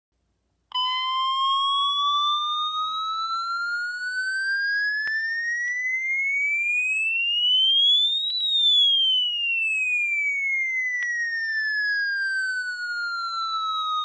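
Electronic alarm tone from a Midland HH50 NOAA weather radio, coming in suddenly a moment in, then gliding slowly up in pitch for about eight seconds and slowly back down.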